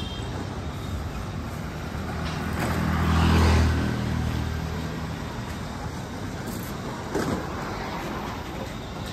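Road traffic: a motor vehicle passes close by. Its engine hum and road noise swell to a peak about three and a half seconds in, then fade back into the steady traffic.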